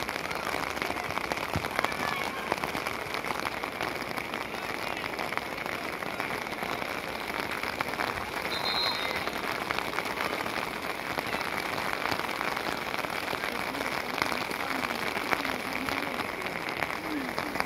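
Steady rain pattering on an open umbrella close to the microphone, a dense, even patter of small drop ticks.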